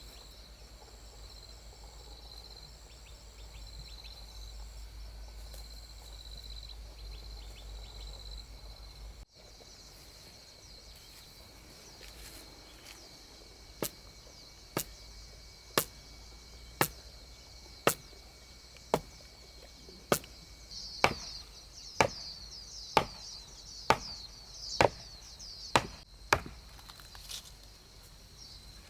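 A tool chopping into wood, one strike about every second for the second half, over a steady high chorus of insects.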